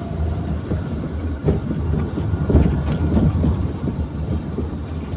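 Inside a moving car: a steady low engine and road rumble, with a few short knocks and rattles.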